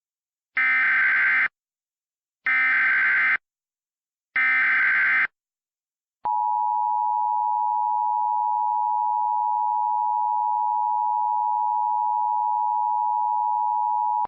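Emergency Alert System header: three short bursts of SAME digital data tones, each under a second with about a second between them, then the two-tone EAS attention signal (853 and 960 Hz together) held steadily for about eight seconds. This sequence signals the start of an emergency alert, here a tornado warning.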